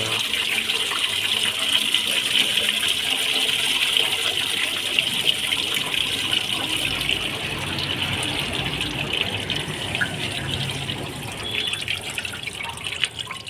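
Engine coolant pouring out of the engine at the water pump into a drain tray, a steady gushing stream that eases off near the end.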